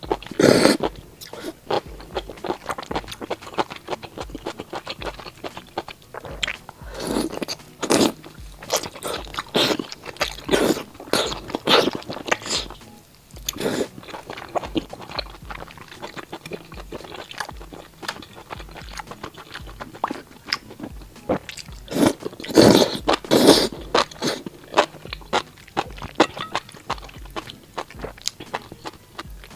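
A person eating close to a clip-on microphone: slurping noodles and chewing soft, fatty braised pork intestines, in irregular bursts of wet mouth sounds with short pauses between.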